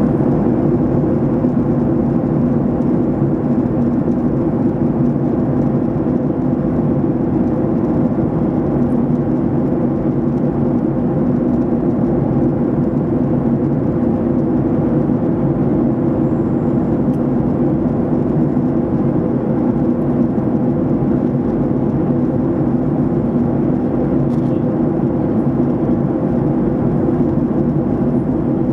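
Steady drone of a passenger airliner in cruise, heard from inside the cabin: even engine and airflow noise with a low hum.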